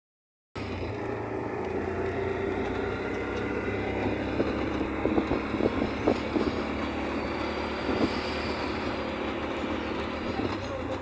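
A vehicle's motor running steadily, with short knocks and rattles scattered through the middle.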